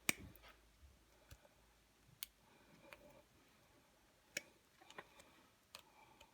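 A few scattered sharp clicks, the loudest right at the start, from pliers gripping and working the end of a steel doorstop spring to cut it open.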